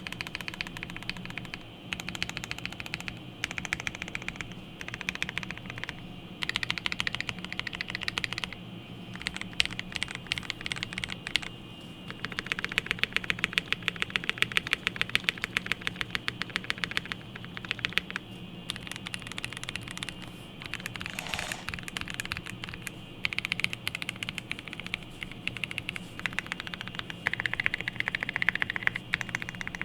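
Typing on a GMMK Pro mechanical keyboard with a POM plate, lubed Everglide Aqua King linear switches and GMK keycaps. Keystrokes clack in uneven bursts, with a fast, dense run of typing in the middle.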